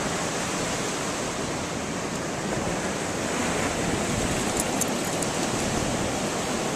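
Ocean surf washing up the sand in a steady rush of breaking foam.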